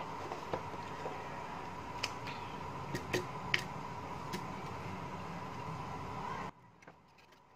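Light clicks and taps from hands handling a bare phone display frame and small repair tools on a silicone work mat, over a steady hum with a faint high tone that cuts off suddenly near the end.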